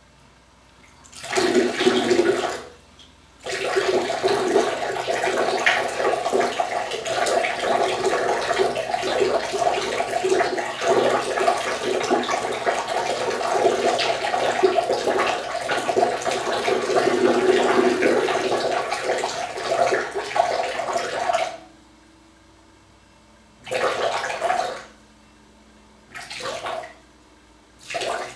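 A man urinating into toilet bowl water: a short spurt about a second in, then a steady splashing stream for about eighteen seconds that stops abruptly, followed by three short spurts near the end.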